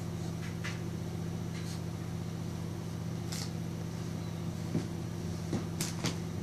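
Steady low electric hum, with a few short light taps and knocks in the second half as a baby's hands grip and bump the rim of a clear plastic storage bin.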